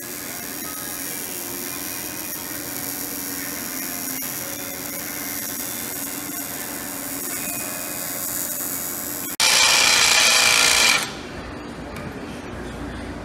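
A welding arc buzzing and hissing steadily as aluminum intake tubing is welded. About nine seconds in, a cordless drill with a step bit bores loudly into the aluminum tube for under two seconds.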